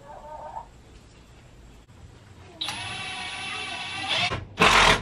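Power drill driving a screw into a wooden roost board. Its motor whines steadily for under two seconds, then a short, louder burst of noise comes near the end.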